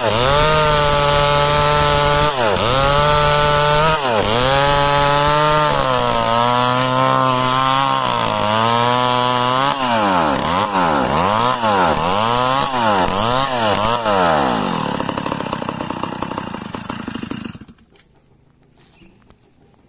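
Stihl chainsaw ripping a log lengthwise, its engine dipping in pitch every second or two as the chain bites into the wood. About ten seconds in the saw is out of the cut and revs rapidly up and down, then runs down and stops near the end.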